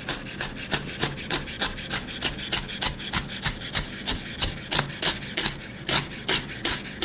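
Chef's knife rapidly chopping kimchi on a wooden cutting board, mincing it fine. Quick, even strokes, about five a second, each blade hitting the board.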